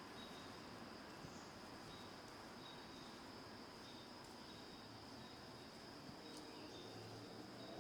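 Faint outdoor ambience: a steady high insect drone with short chirps repeating every half second or so, over a low wash of distant road traffic.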